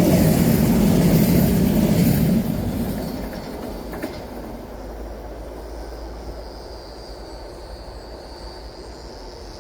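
Train passing: the loud rumble of its wheels fades after about two and a half seconds as it moves away, and a faint high-pitched squeal hangs on in the second half.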